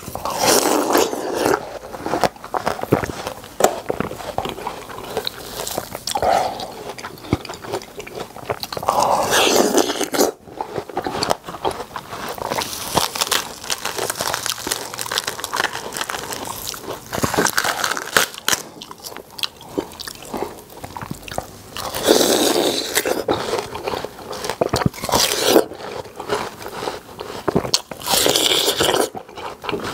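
A person biting into and chewing watermelon (a yellow-rinded half-moon watermelon): wet, crunchy bites in several louder bouts, with steady crackly chewing between them.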